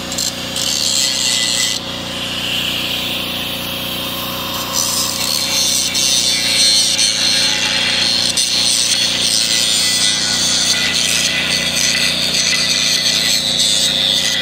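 Handheld angle grinder running and grinding into steel, cutting a V-groove into a cracked implement frame to prepare it for welding. The grinding gets louder about five seconds in as the disc bites harder and stays steady after that.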